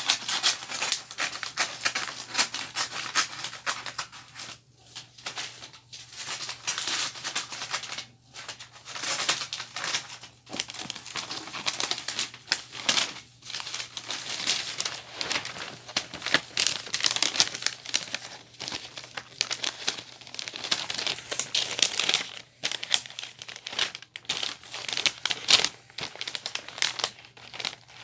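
Wrapping paper crinkling and rustling as a present is wrapped by hand, almost continuously with a few brief pauses.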